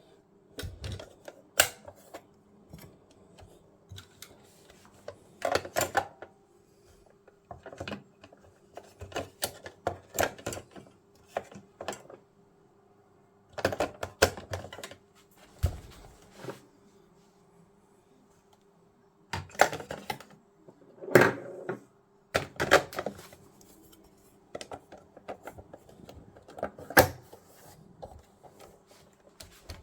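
Irregular clicks, clacks and knocks of hard objects being handled, coming in clusters with short pauses between them, over a faint steady hum.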